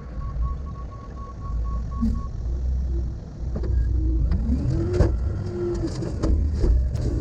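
Heavy earthmoving machine's diesel engine running with a deep rumble. A rapid beeping stops about two seconds in, then a whine rises in pitch about four seconds in, with several sharp metal clanks in the second half.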